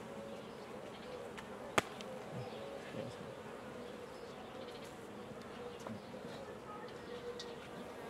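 Honeybees buzzing over an open hive, a steady wavering hum, with one sharp click about two seconds in.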